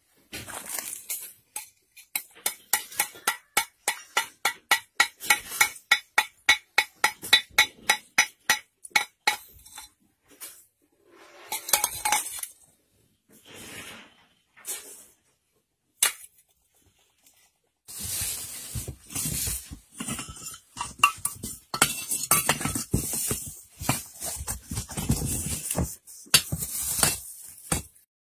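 Pieces of binchotan white charcoal knocked together and handled, a quick run of hard, ringing clinks about three or four a second, then scattered clinks and a stretch of looser clattering as pieces are turned over in the heap. The bright ring is typical of hard, fully fired white charcoal.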